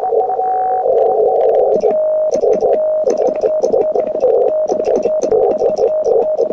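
Morse code (CW) from a shortwave transceiver: for the first two seconds a steady tone and a hiss of receiver noise through the narrow CW filter, then a slightly lower Morse tone keyed in quick dits and dahs. Sharp mechanical clicks of the Vibroplex Lightning Bug semi-automatic key's contacts come with the keyed tone.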